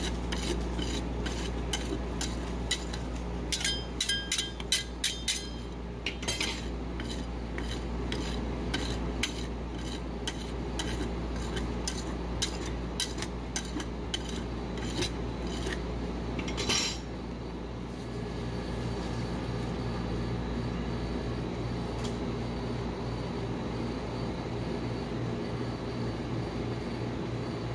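Metal spatula scraping and tapping on a stainless-steel ice-roll cold plate, with a quick run of clinks a few seconds in and one louder scrape about halfway; after that the clinking stops and a steady low hum carries on underneath.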